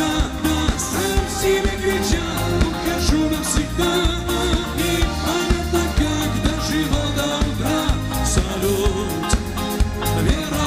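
Live pop-rock band playing, with a male lead vocalist singing over drum kit, electric guitar, bass and keyboards.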